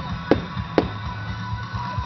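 Music with a steady low beat and guitar, with two sharp firework bangs about half a second apart early on top of it.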